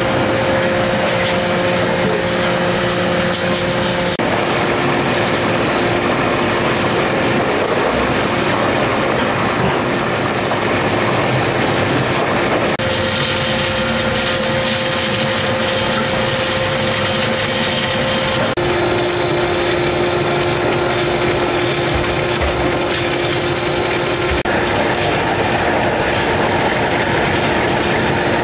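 Electric soybean grinder running steadily while soaked soybeans and water are fed through it, grinding them into soy milk slurry for tofu. A steady tone sits over an even rushing noise, and the sound shifts abruptly a few times.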